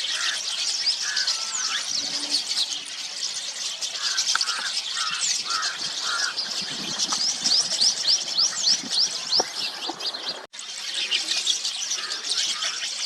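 A flock of rosy starlings chattering: a dense, continuous mix of many short, high, squeaky notes, with a run of five lower notes about four seconds in.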